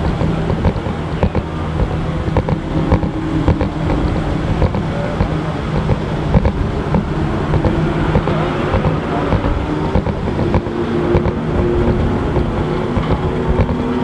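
Jaguar F-Type sports car engines idling with a steady low rumble as the cars wait in a queue. Near the end, one engine's note rises as a car pulls away.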